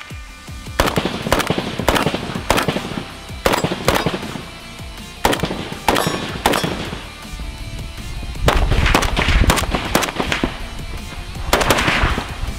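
Arsenal SLR-104, a 5.45x39 mm AK-74-pattern rifle, fired in quick strings of shots, about two a second at first, under background music.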